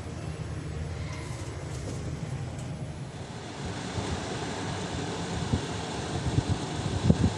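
Passenger elevator car running: a steady low rumble that grows broader and louder about halfway through, with a few knocks near the end.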